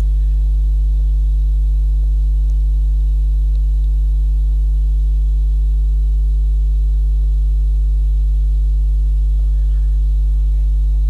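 Loud, steady electrical mains hum at about 50 Hz with a stack of overtones, unchanging throughout.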